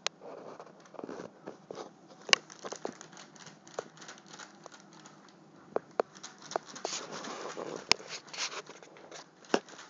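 Crinkling and rustling of a takeout bag with a small dog shifting inside it, broken by a few sharp clicks and knocks.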